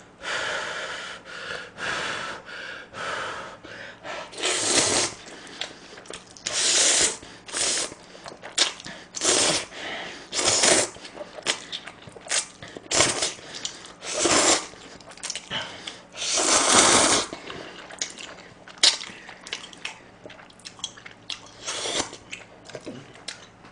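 A man slurping saucy jjajang buldak stir-fried instant noodles, a string of loud sucking slurps each lasting under a second to about a second, coming every one to two seconds, with quieter eating noises between.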